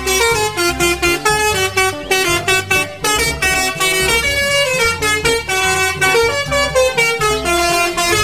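Multi-tone 'telolet' musical air horn on an Indonesian coach bus, playing a quick melody of stepped notes over a deep pulsing sound underneath.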